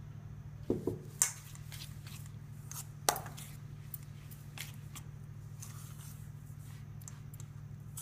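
A few sharp clicks and light knocks of bowls and utensils being handled in a kitchen, the loudest about a second and about three seconds in, over a steady low hum.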